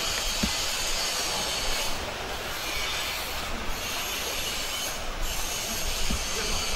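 Steady rushing of a river in flood, fast muddy water running under a bridge, with a couple of low bumps near the start and end.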